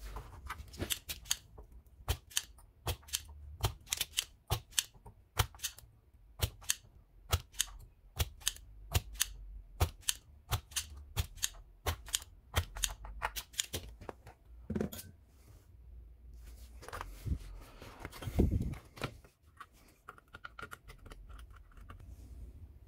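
Rapid, irregular sharp clicks and taps, two to three a second, from a hand tool working on the solder side of a TV power board during desoldering; they stop about 14 seconds in. A short rustle with a heavier thump follows a few seconds later as the board is handled.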